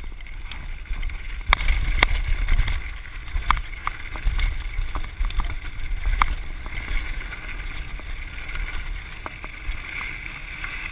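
Mountain bike rolling fast down a gravelly dirt trail: tyres rumbling over the ground and wind buffeting the microphone, with sharp clicks and rattles from the bike as it hits rocks and bumps, the loudest about two seconds in and again about six seconds in.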